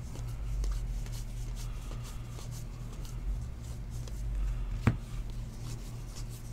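Baseball trading cards being sorted by hand, with light papery flicks and slides as each card is slipped from the front of the stack to the back. There is a steady low hum underneath, and one sharper click about five seconds in.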